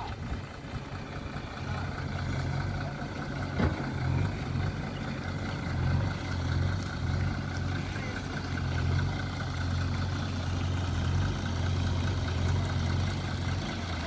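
Heavy diesel engine idling steadily, a low even drone, with a single sharp click a little under four seconds in.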